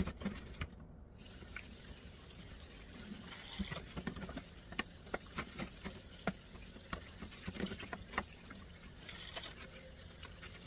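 Kitchen tap running water over a plastic dish-drainer tray in a steel sink, starting about a second in, with scattered light knocks as the tray is scrubbed and turned under the stream.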